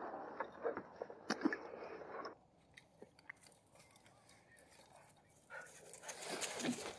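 Lake water sloshing against rocks, with knocks and bumps of an inflatable kayak's hull against the stone as it comes in to shore. The sound drops abruptly about two seconds in, then turns to faint clicks and, near the end, scraping and rustling as the kayak is hauled out of the water.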